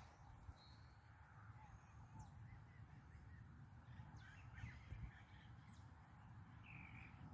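Faint calls of several wild birds: short chirps and whistles scattered throughout, with a clearer call near the end.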